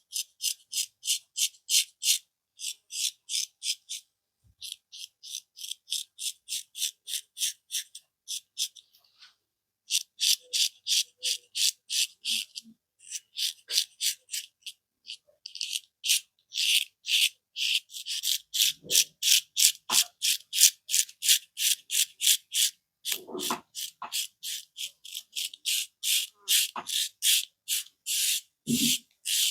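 Brisk rhythmic rubbing of hands on skin and hair during a barber's massage, about four strokes a second in runs with short pauses. A few soft thuds come in the second half.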